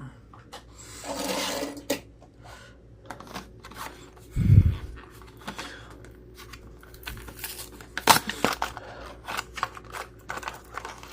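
Toy car blister packaging of plastic and cardboard being opened by hand: a rustling tear about a second in, a low thump at about four and a half seconds, the loudest sound, then a run of sharp plastic clicks and taps.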